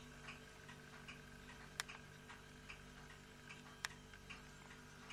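Faint, even ticking about two and a half times a second, with two sharper clicks and a low steady hum underneath.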